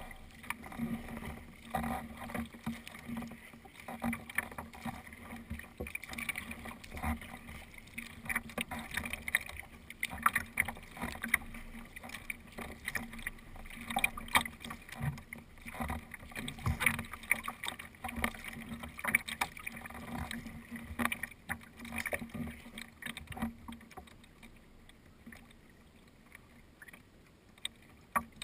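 Water splashing and lapping against a sea kayak's hull as it is paddled, in irregular splashes. It quietens over the last few seconds.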